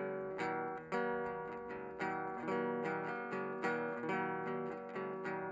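Acoustic guitar strummed in steady chords, about two strums a second, with no singing.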